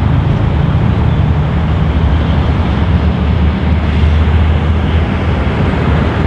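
Peppercorn A1 Pacific steam locomotive 60163 Tornado approaching at speed, running light engine: a steady, loud, low rumble with no separate exhaust beats to be made out.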